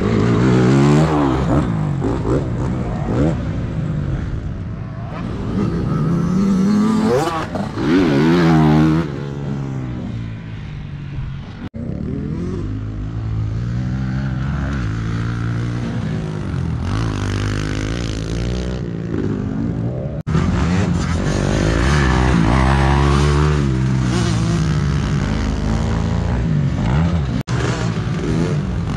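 Small pit bike engine running on a motocross track, its pitch repeatedly rising and falling as the throttle is opened and closed. The sound cuts out briefly three times.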